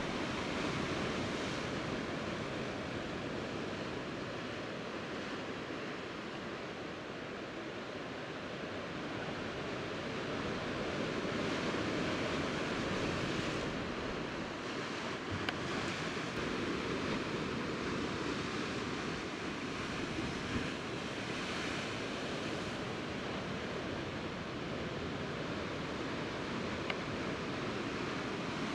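Sea surf washing steadily against a rocky shore, slowly swelling and easing, with a few faint clicks.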